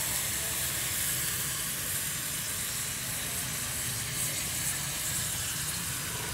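Shredded green papaya sizzling in hot oil in a wok over a wood fire: a steady hiss, with a couple of faint crackles about two-thirds of the way through.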